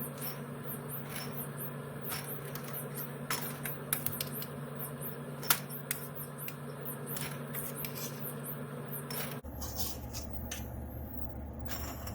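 Repeated light clicks and clinks of kitchen utensils against glass canning jars as they are filled with peach pieces, over a steady low hum. The hum changes abruptly about nine seconds in.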